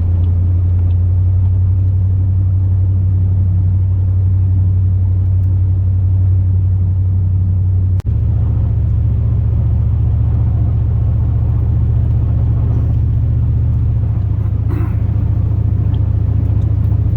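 Steady low drone of a 2002 Chevrolet Silverado's 8.1-litre big-block V8 and drivetrain, heard inside the cab. It drops out for an instant about eight seconds in, then resumes slightly higher in pitch.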